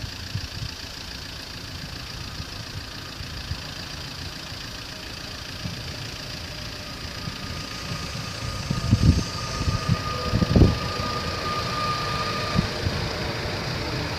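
Double-deck electric regional train approaching through the station tracks: a steady low rumble with a faint steady whine over several seconds, and two louder low thuds about a second and a half apart past the middle.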